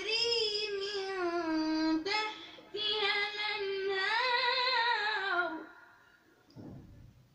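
A child reciting the Quran in melodic tajweed style, a high voice drawing out long ornamented notes that bend up and down. There is a short break about two seconds in, then one more long phrase that falls away and ends a little before the last two seconds.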